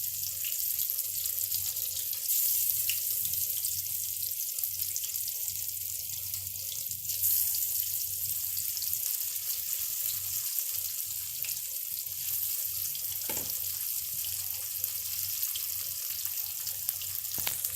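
Batter-coated bottle gourd pieces shallow-frying in hot mustard oil in a kadhai, making a steady, even sizzle.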